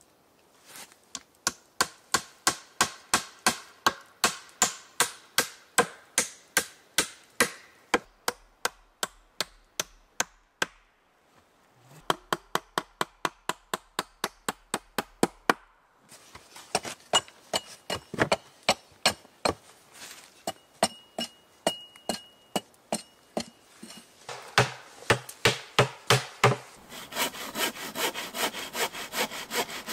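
Handsaw cutting through wood in steady back-and-forth strokes, about two to three a second, in several short takes that cut in and out.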